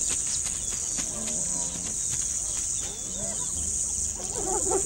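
Crickets chirring steadily, high-pitched. About four seconds in comes a quick run of short rising-and-falling spotted hyena calls, about five a second.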